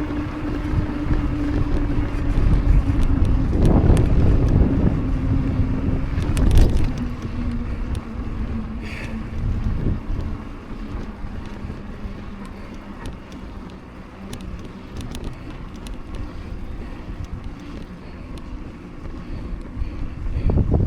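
Mountain bike ridden on pavement: wind buffeting the microphone over a steady tyre hum that slowly drops in pitch, with a few scattered clicks and a brief high squeak about nine seconds in.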